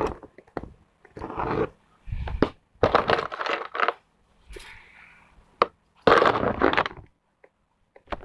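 Segmented fidget toy being twisted and worked in the hands, its movable sections clicking and scraping against each other in several separate bursts, loudest about a third of the way in and again after six seconds.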